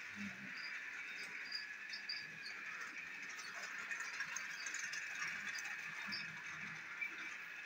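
Battery-powered toy Duncan engine running on plastic track: a steady high motor whir with the light rattle and clicking of its wheels and slate trucks.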